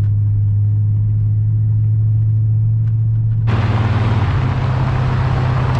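A truck engine running with a steady low drone. About three and a half seconds in, it abruptly gets louder and fuller with road and wind noise, and its pitch steps up slightly a second later, as when the vehicle gets under way.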